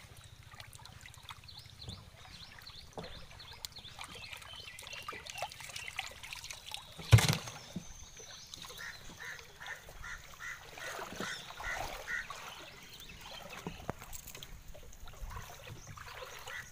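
Gill net and fish being handled at a wooden dugout canoe, with a single sharp knock on the canoe's wood about seven seconds in. From about nine seconds a run of short, evenly spaced calls repeats several times.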